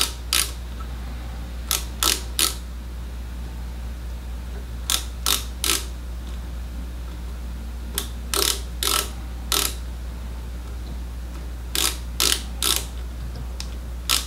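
Micrometer ratchet stop clicking in short runs of two to four clicks, about every three seconds, as the micrometer is closed onto a nickel silver ferrule slide to measure its diameter. A steady low hum runs underneath.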